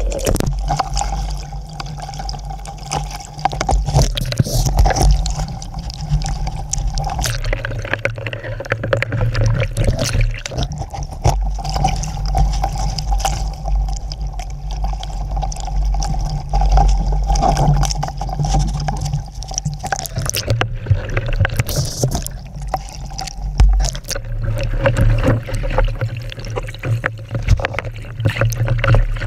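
Lake waves sloshing and gurgling around a capsized Sabot sailing dinghy, with many small knocks of water against the hull and camera, over a steady low rumble of wind on the microphone.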